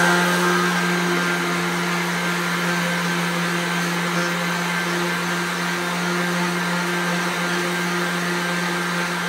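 Cordless Milwaukee random-orbital (DA) sander running at a steady speed, its motor hum holding one pitch under the scrubbing of the sanding disc against a notched metal tube. The joint is being sanded clean ready for welding.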